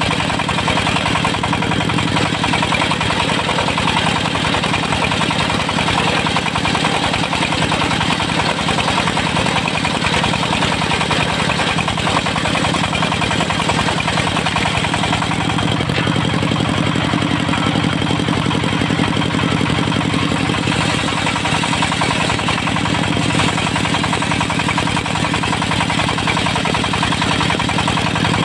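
Diesel engine of a portable circular sawmill running steadily, with a fast, even firing pulse that holds constant throughout.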